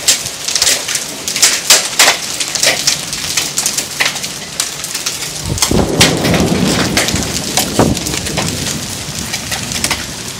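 Small hailstones and heavy rain pelting the ground, with many sharp, irregular clicks of stones striking close by. A low rumble comes in about halfway through and lasts a few seconds.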